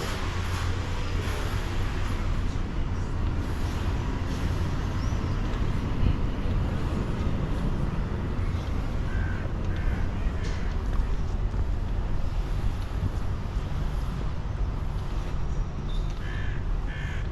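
A crow cawing in short calls, a few about nine to ten seconds in and two more near the end, over a steady low rumble.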